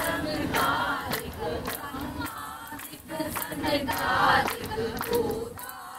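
Many voices singing together, a group devotional chant. It swells louder about a second in and again around four seconds in.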